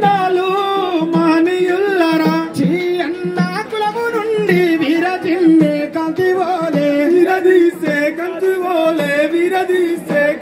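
Telugu folk song sung by men through microphones and a PA, a held, wavering melody over a steady beat of dappu frame drums.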